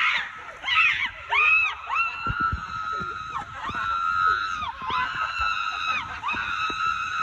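A high-pitched voice screaming in a string of about six long held cries, each about a second, the pitch bending up at the start and dropping at the end.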